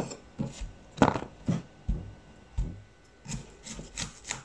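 Small kitchen knife peeling and trimming a broccoli stalk on a wooden cutting board: about a dozen short scrapes and light knocks at an uneven pace.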